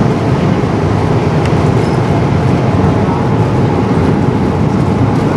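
Steady cabin noise of a jet airliner in flight, engines and rushing air making an even low rumble with a hiss above it.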